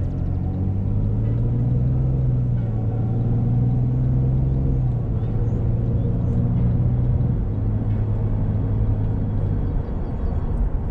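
2001 BMW Z3's straight-six engine running as the car drives, a steady low note that drops slightly about halfway through.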